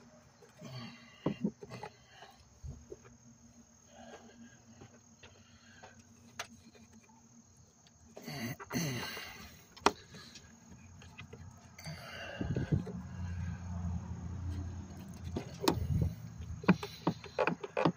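Scattered clicks, taps and rustles of hands pulling a rubber vacuum line and handling plastic parts in a car's engine bay, with one sharp click about ten seconds in. A faint steady insect drone runs behind, and a low rumble comes in over the last third.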